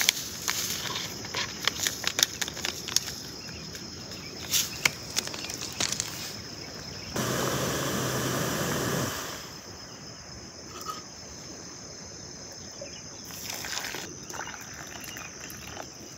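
Crinkling and ticking of an instant-coffee sachet being handled and shaken into a steel camping mug, over a steady high insect chirr. About seven seconds in, a loud rushing hiss runs for about two seconds.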